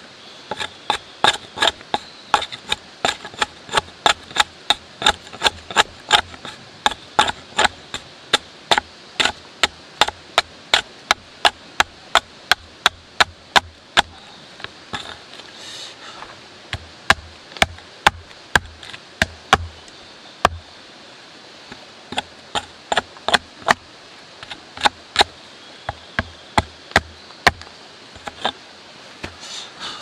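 Hatchet chopping into a fresh log, hewing a flat face on it: a steady run of sharp wooden strikes about two a second, broken by two short pauses past the halfway point.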